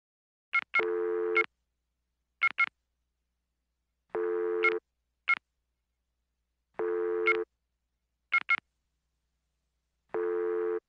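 Synthetic electronic tones in a repeating pattern: pairs of short high blips alternating with a steady, buzzy pitched tone about half a second long, the cycle coming round every two to three seconds with silence in between.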